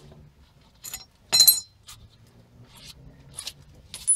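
Small metal parts clinking as they are handled. One sharp, ringing clink about a second and a half in is the loudest sound, with lighter clicks before and after it.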